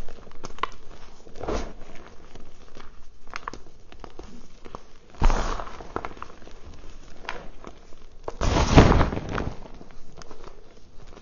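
Lumps of reformed gym chalk being crushed and crumbled by hand in a plastic bowl: a run of small crackles and crunches with powder pouring back onto the pile. There is a sudden louder crunch about five seconds in and a longer, louder crunching about a second long near nine seconds.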